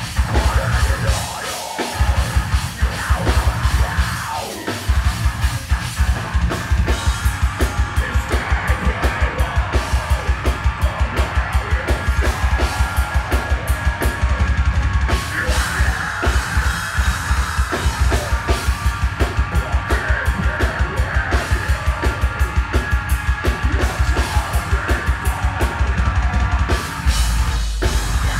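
Metalcore band playing live: heavy guitars over a drum kit, with a rapid, even kick-drum pattern of about four to five strokes a second running from about five seconds in almost to the end, after a few stop-start hits at the start.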